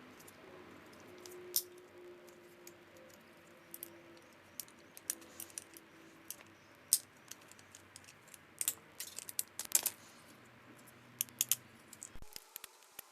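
Irregular sharp clicks and light metallic clinks of small metal parts and hand tools being handled while a VCR is taken apart for scrap, with a quick cluster of clicks about nine seconds in.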